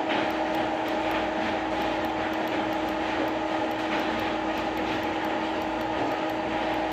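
Lathe simulator's machine sound: a steady motor hum with a few fixed tones while the simulated lathe runs during a turning cut.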